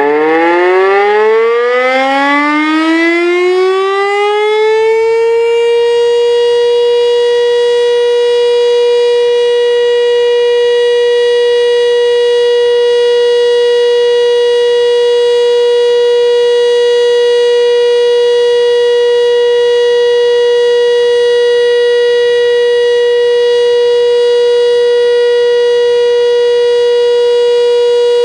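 Electromechanical rotor siren winding up, its pitch rising for about five seconds before it settles into one long, steady tone.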